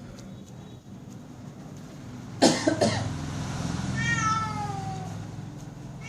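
A cat gives one drawn-out meow that falls in pitch, about four seconds in. A little before it come two short, sharp, hissy bursts, the loudest sounds here, over a steady low hum.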